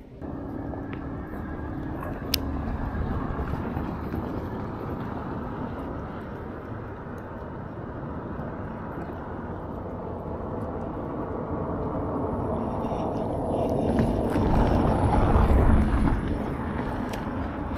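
A steady low rushing noise that swells about three-quarters of the way through, with a single sharp click a couple of seconds in.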